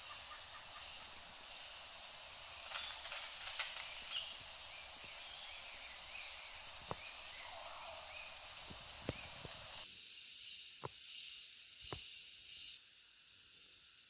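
Shallow forest stream running with a steady hiss, broken by a handful of sharp clicks. The sound thins out about ten seconds in and drops much quieter near the end.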